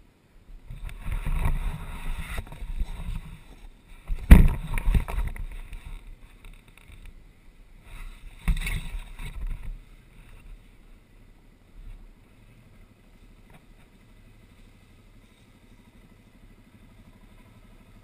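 Off-road engines from nearby ATVs and dirt bikes rising in two rough bursts, with a sharp knock about four seconds in, then settling to a faint idle.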